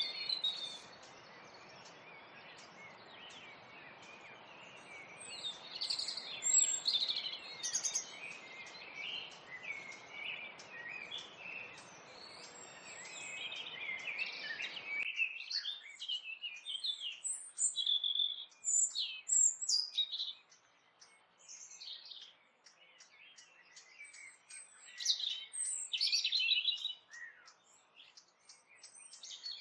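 Several songbirds chirping and singing in many short, quick phrases. Under them for the first half is a steady low rush of falling water from a small waterfall, which cuts off abruptly about halfway through, leaving only the birds.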